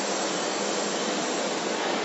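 Steady, even hiss of a running welding machine.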